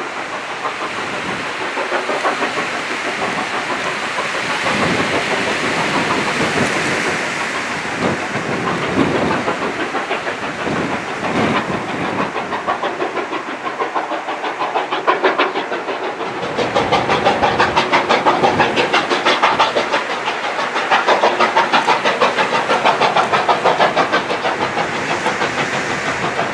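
Denver & Rio Grande Western 463, a narrow-gauge 2-8-2 steam locomotive, working a freight train, with the hiss and rush of steam and the clatter of the cars on the rails. About two-thirds of the way through the sound turns into a fast, regular pulsing and gets a little louder.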